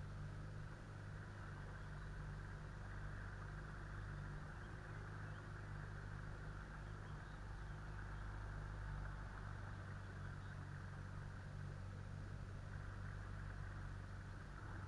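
Small boat's outboard motor running steadily at low speed, a constant hum with no change in pitch.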